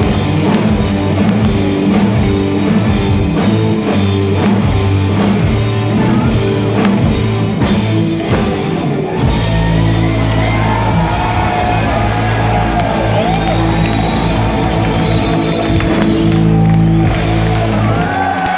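A rock band playing live: a driving beat with drums and guitars, then about halfway through the band holds a sustained low chord while notes bend up and down above it.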